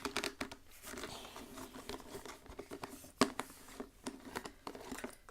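Toy packaging being opened by hand: light crinkling and scattered small clicks, with one sharper click about three seconds in.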